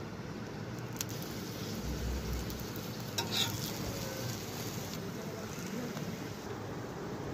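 Paratha frying in fat on a tawa, a steady sizzle, with a sharp click about a second in and a louder clatter around three seconds in as it is handled and turned.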